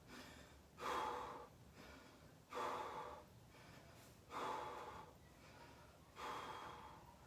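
A person breathing hard after exertion, with four loud breaths about two seconds apart, each fading away, as they recover between sets of a calisthenics workout.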